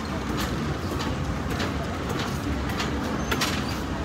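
Loaded wire shopping cart rolling over a concrete floor: a steady low rumble from the wheels with irregular clicks and rattles from the basket.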